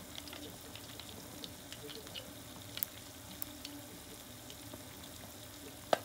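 Chicken karaage deep-frying in oil in a small aluminium mess tin: a steady sizzle with scattered small crackles and pops. A single sharp click sounds just before the end.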